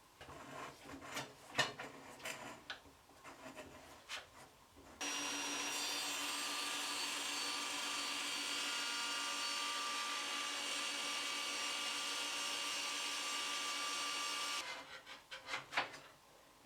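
A power tool running steadily as it cuts a rebate into resin-coated plywood, starting abruptly about five seconds in and stopping abruptly about ten seconds later. Before it, a few scattered knocks and clicks of handling.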